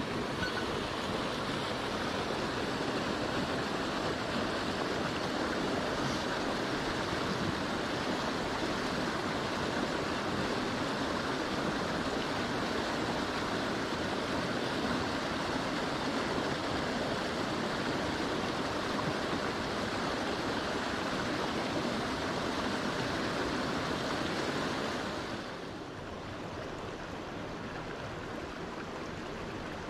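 Mountain stream water rushing steadily. It turns quieter and duller about 25 seconds in.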